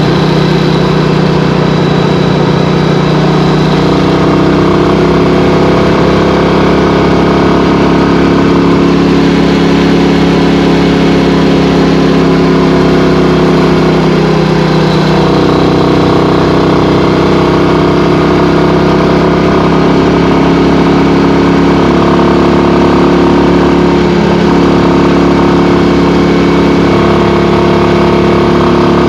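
Royal Enfield Classic 350's single-cylinder engine running steadily under way, its note shifting slightly a few times with the throttle.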